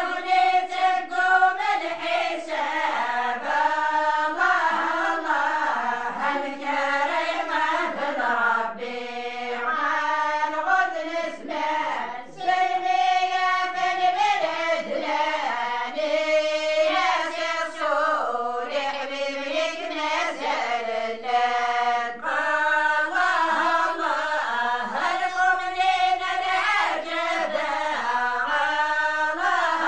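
A group of women singing an unaccompanied Amazigh religious praise chant (madih), the voices carrying one melody in long phrases that rise and fall.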